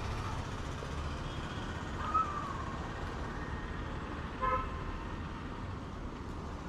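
Steady low rumble of outdoor background noise, with a faint tone that rises and falls about two seconds in and a short pitched toot about four and a half seconds in.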